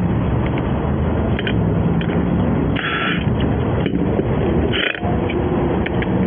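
Steady loud noise of road traffic, with two short hissing bursts about three and five seconds in.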